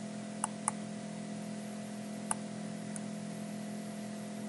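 Computer mouse clicks, two close together about half a second in and one more a little over two seconds in, over a steady microphone hiss and low hum.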